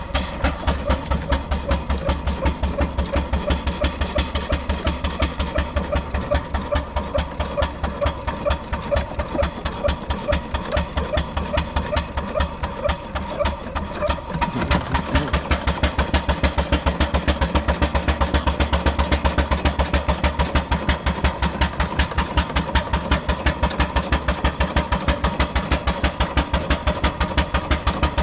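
Miniature steam traction engine moving off under steam, its exhaust beating in a quick, even rhythm. The beats ease briefly about halfway, then carry on louder and steadier.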